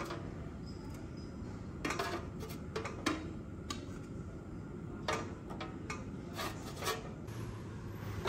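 Kitchen utensils and dishes being handled, with scattered clinks and knocks over a low steady hum.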